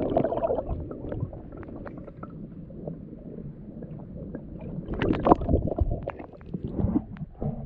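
Kayak being paddled: paddle strokes splashing and dripping water, with scattered small knocks, loudest about five seconds in.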